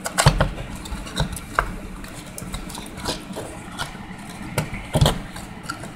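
A small cardboard parts box being opened by hand: scattered light clicks, taps and knocks of the flaps and fingers, a louder knock about five seconds in, over a faint low hum.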